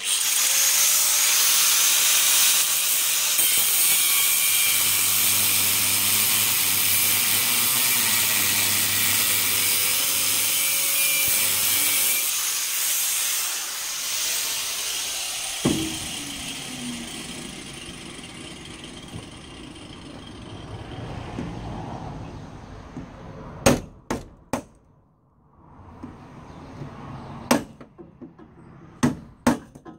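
Angle grinder with a cutting disc slicing through a steel gutter bolt and nut for about twelve seconds, then dying away. Near the end, several sharp hammer blows on a splitting chisel knock off the cut remnants of the bolt.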